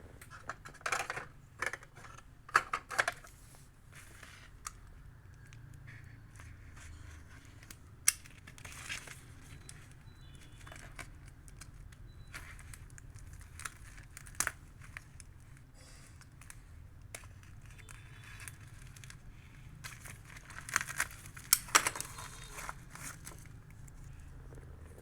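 A parcel being unpacked by hand: short bursts of tearing and crinkling packaging, in clusters separated by quieter stretches, loudest a few seconds from the end.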